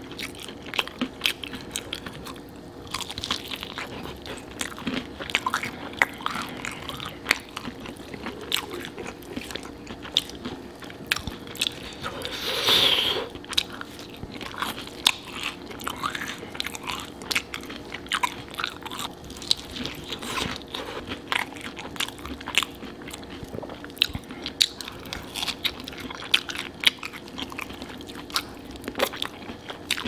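Close-miked biting, crunching and chewing of sauce-coated fried chicken drumsticks, with many sharp crunches of the crisp breading between quieter chewing. One louder, longer noise about halfway through.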